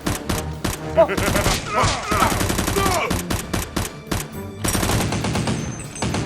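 Rapid bursts of machine-gun fire sound effects over background music.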